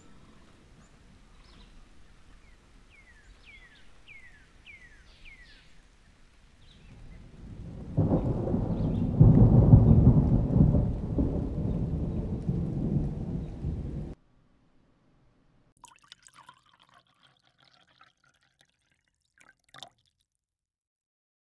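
A few faint bird chirps, each sweeping down in pitch, then a loud low rumble of thunder that builds over about six seconds and cuts off suddenly. A few faint ticks follow near the end.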